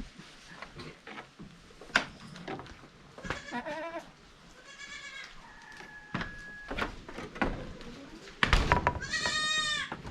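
Goats bleating: a few short bleats about three to five seconds in, then one loud, longer, wavering bleat near the end, with scattered knocks in between.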